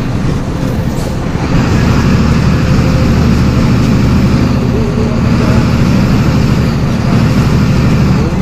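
MWM 6.12 TCAE six-cylinder turbodiesel of a city bus running under way. It is quieter for about the first second and a half, then pulls steadily at a higher level.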